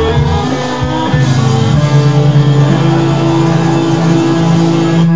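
Electric guitar playing a run of held notes and chords, ending on a long sustained note.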